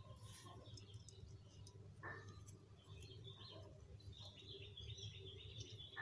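Faint chirping of small birds in the background, with a single light knock about two seconds in as metal carburetor parts are handled.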